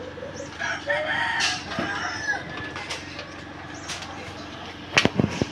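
A rooster crowing once, a pitched call that rises and falls, then a few quick sharp knocks near the end.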